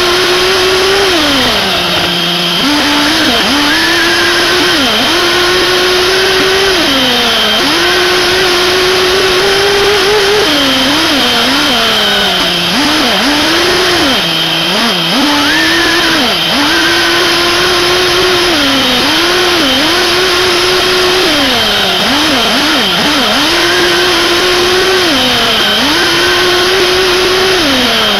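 SH PT21-P3 3.5 cc nitro glow engine on a 1/8-scale RC buggy running hard while driving: it holds a high, buzzing scream and drops in pitch each time the throttle is eased, then climbs again, a dozen or so times.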